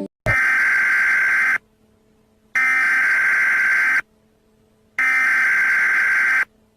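Emergency Alert System SAME header: three bursts of screeching digital data tones, each about a second and a half long, with about a second of silence between them. This is the coded header that opens an EAS alert.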